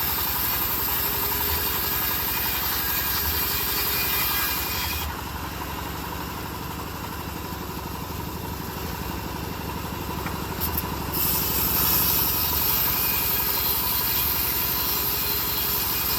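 Engine of a homemade bandsaw mill running steadily with an even low throb. A high hiss over it drops out for about six seconds midway, and the level dips, before both come back.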